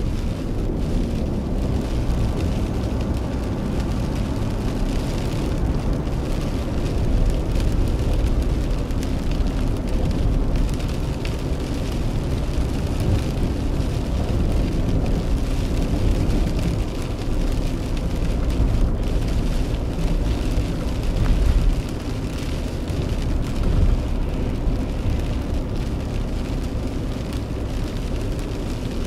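A car driving through rain on a wet road, heard from inside the cabin: a steady low rumble of engine and tyres with a hiss of rain and spray above it.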